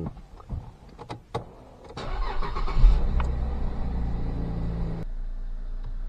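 Car engine starting: a few clicks, then the engine catches about two seconds in. It runs for a few seconds and then settles to a steady idle about five seconds in.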